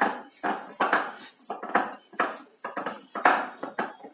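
Hands smearing ghee over soft dough in a metal bowl: a run of short slaps and scrapes, about two or three a second, with the bowl clinking.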